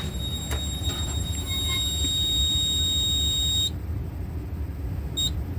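Fire alarm control panel's trouble sounder giving a steady high-pitched beep-free tone that cuts off suddenly a little over halfway through, over a low background rumble. The tone signals a trouble condition on the panel, which the owner traces to a battery cable that came out.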